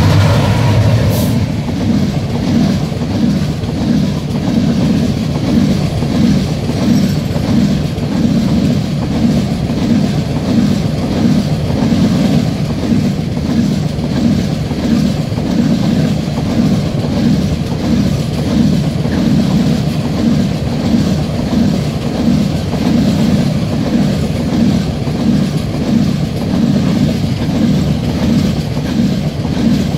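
A freight train rolling past at speed: a steady, loud rumble of wagon wheels on the rails with a regular clickety-clack from the bogies. In the first second the low engine drone of the train's Class 66 diesel locomotive fades as it passes.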